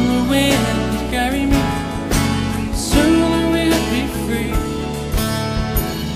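Instrumental break in a soft-rock ballad: a band plays sustained chords with guitar, while a lead melody line slides between notes.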